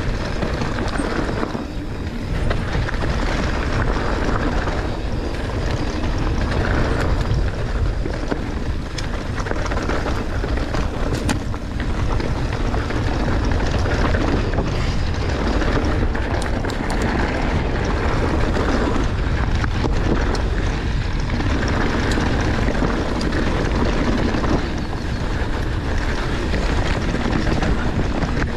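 Mountain bike descending a rough dirt trail: wind buffeting the bike-mounted or helmet microphone over the rumble of tyres on dirt and rock, with scattered sharp clicks and rattles from the bike.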